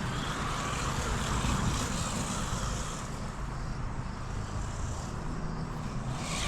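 Electric RC monster truck being driven, its motor and tyres giving a steady rushing whir with a low hum underneath.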